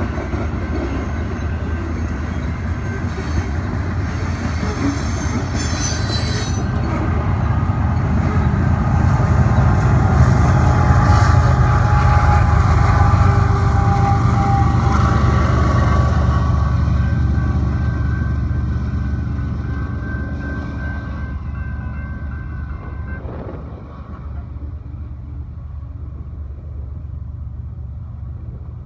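BNSF freight train of covered hopper cars rolling through a grade crossing, with a steady rumble of wheels on rail. It grows louder as a diesel locomotive at the rear of the train passes about halfway through, then fades away as the train clears the crossing.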